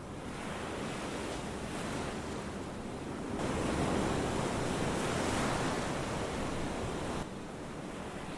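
Sea surf washing onto a beach: a steady rushing wash of waves that swells about three seconds in and drops off suddenly near the end.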